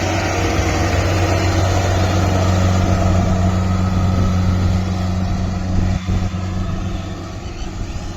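Diesel engine of a Kubota rice combine harvester running steadily with a deep hum, with a brief knock about six seconds in, after which it runs a little quieter.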